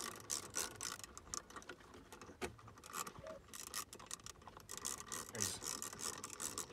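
Small wrench turning the long bolt that draws the plastic harness connector onto a marine engine computer (PCM): a faint, rapid run of clicks and metal scraping as the bolt is tightened.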